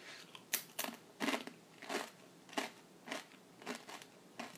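A Doritos tortilla chip being bitten and chewed, a crisp crunch about twice a second.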